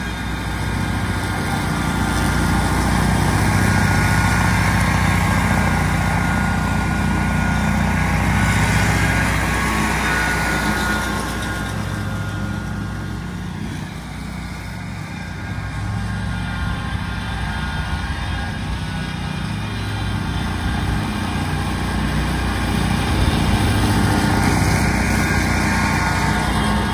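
Altoz TSX561 stand-on tracked mower running with its blades cutting wet grass: a steady engine drone with a higher whine on top. It grows fainter in the middle as the mower moves off and louder again near the end as it comes back close.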